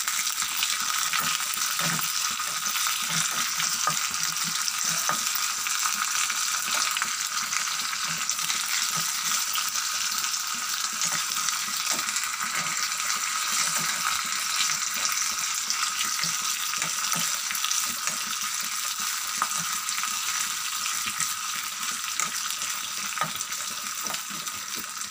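Oil sizzling steadily in a small steel pan as garlic cloves, cumin, dried red chillies and curry leaves fry for a tempering. A spoon stirs the pan, with occasional light scrapes and clicks against the metal.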